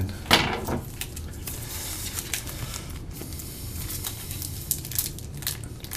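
Trading cards being handled in the hands: a steady papery rustling and sliding, with scattered small clicks.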